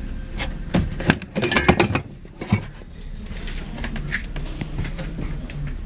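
Clicks, knocks and light clatter of ceiling fan parts, such as a switch housing, being handled and fitted, for about the first two and a half seconds. After that only a steady low hum remains.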